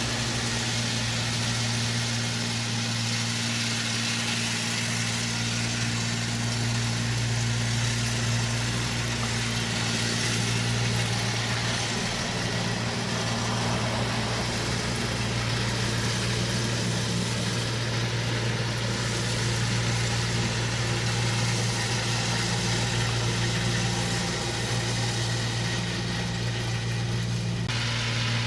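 Engine of a large compost-spreading farm machine running steadily at constant speed, a low even hum over a broad rushing noise.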